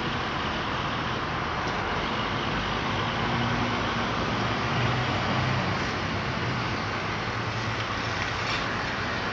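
Street traffic noise with a semi truck's diesel engine as it pulls a livestock trailer through the intersection, its engine drone strongest around the middle.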